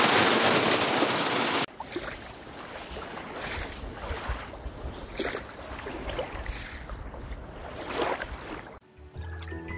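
Hail and rain drumming hard on a car's roof and windscreen, heard from inside the car, cutting off suddenly after about a second and a half. Then gusty wind rumbles on the microphone, with small waves lapping at a lake shore, and music starts near the end.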